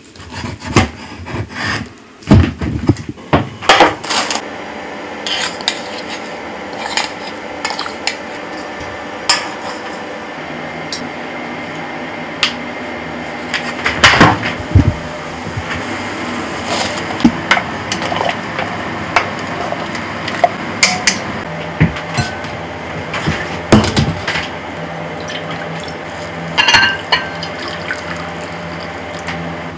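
Kitchen work: a cleaver knocking on a wooden cutting board as it slices roast pork in the first few seconds, then pots, dishes and utensils clattering over a steady background rush, and broth pouring into a ramen bowl near the end.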